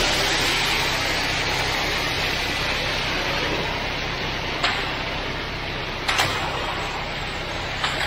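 Loose, high-slump ready-mix concrete rushing steadily down the steel discharge chute of a concrete truck, with the truck's engine rumbling underneath. A few sharp knocks come through about halfway and near the end.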